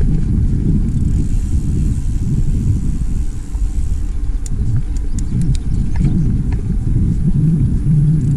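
Mountain bike rolling along a dirt singletrack: a steady low rumble of wind on the microphone and tyres on the trail, with scattered sharp clicks and rattles from the bike, most of them in the second half.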